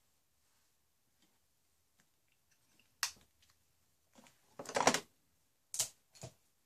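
Handling of small makeup items: a sharp click about three seconds in, a louder burst of clicking and rustling a little later, then two short clicks near the end.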